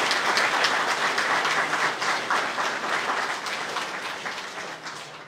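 Audience applauding, a dense patter of many hands clapping that gradually dies away over the last few seconds.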